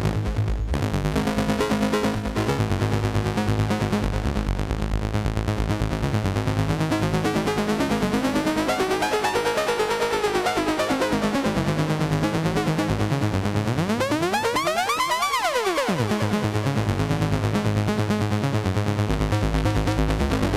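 A DIY Eurorack wavetable oscillator built on a Seeeduino Xiao playing a fast repeating synth pattern, its tone sweeping as the wavetable overflow folding is modulated, which gives a hard-sync-like sound. About fourteen seconds in the harmonics swoop steeply down and back up.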